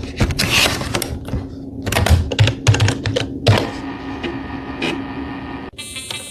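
An irregular run of sharp clicks and clacks, like keys being struck, over a steady low hum. Music cuts in near the end.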